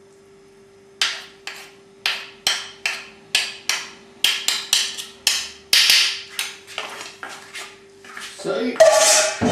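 A metal utensil clinking against dishes in a series of sharp taps, about two or three a second, ending in a louder clatter near the end, over a faint steady hum.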